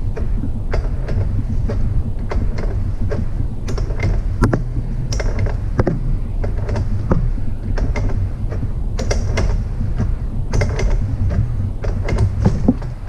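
Irregular metal clicks and knocks of parts and a hand tool being fitted to the pump of a Wagner 1940 airless paint sprayer during reassembly, over a steady low hum.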